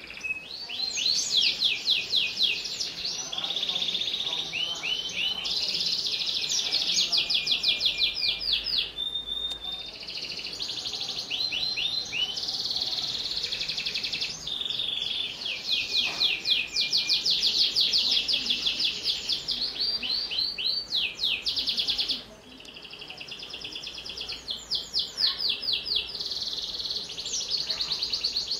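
Domestic canary singing a long unbroken song of rapid trills, each a quick run of the same sweeping note repeated many times, one trill passing straight into the next. It drops suddenly in level about three-quarters of the way through, then builds again.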